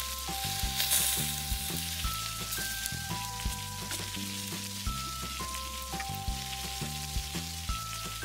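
Kimchi pancake batter sizzling in hot oil in a miniature candle-heated frying pan, a steady frying hiss that is strongest in the first second or two. Soft background music with a bass line plays under it.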